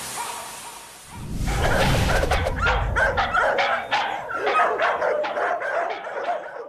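Music fading out, then dogs barking and yipping from about a second in: many short barks in quick succession, overlapping, with a low rumble under the first of them.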